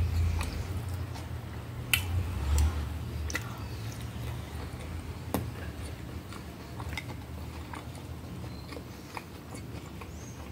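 A person chewing a mouthful of soft food, spaghetti and potato-mayonnaise salad, close to the microphone, with wet mouth clicks and smacks at irregular moments.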